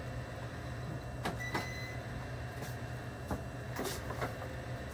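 Lottery ticket terminal at a store counter putting an order through: a short electronic beep and a few scattered clicks. A steady low hum runs underneath.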